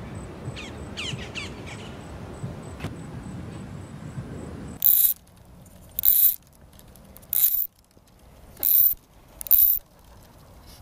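Outdoor ambience with a few short bird chirps and a low rumble, then five short, loud ratcheting buzzes a little over a second apart: a fly reel's click-pawl drag as line is pulled off it in quick strips before casting.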